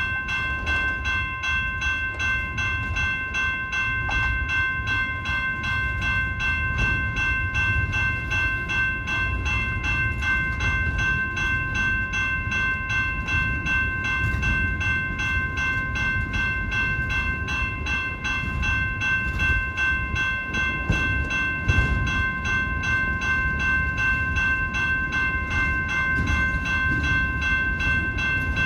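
Freight train rolling past: a low rumble of the moving cars with faint, evenly spaced clicking, under a steady high-pitched ringing tone of several notes that holds unchanged throughout.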